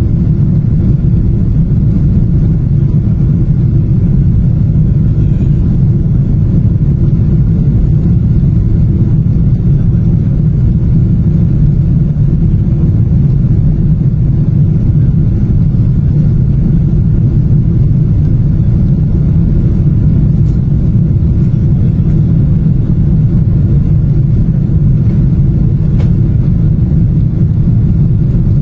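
Jet airliner cabin noise during the climb after take-off: a loud, steady low rumble of the engines and rushing air, heard from a window seat inside the cabin.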